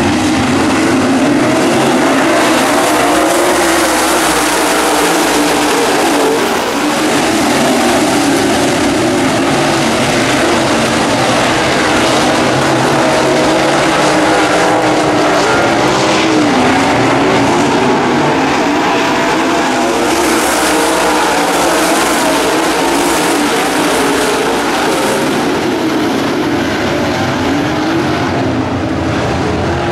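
A pack of dirt late model race cars with V8 engines running hard, a loud steady drone whose pitch rises and falls as the cars accelerate and lift around the oval.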